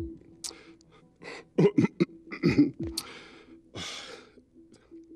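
A man's breaths and throat-clearing sounds in a pause between words: a few short throaty noises about one and a half to three seconds in, then a long breath near the end, over a faint steady low hum.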